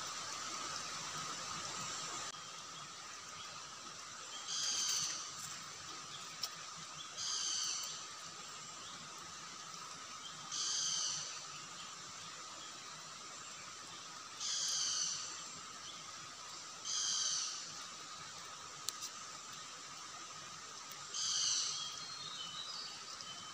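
An animal calling six times, each call about a second long and a few seconds apart, over a steady hiss of running stream water and a constant high drone.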